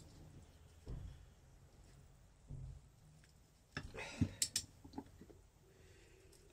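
A few faint, scattered clicks and knocks of metal tools and engine casing being handled, with a short cluster of them about four seconds in.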